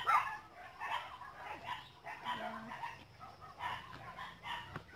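Chickens clucking, short irregular calls scattered throughout.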